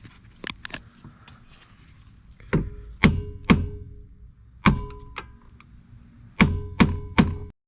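Hammer striking a screwdriver or chisel set into the head of a tamper-proof bolt on a steering column lock, seven sharp metallic blows in three groups with a short ring after each, after a few light clicks. The bolt is not coming loose.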